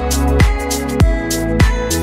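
Instrumental background music with a steady beat, about one stroke every 0.6 seconds, under held pitched tones.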